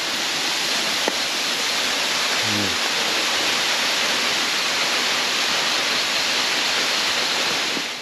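Steady rush of a tall, narrow rainforest waterfall, fading out at the end.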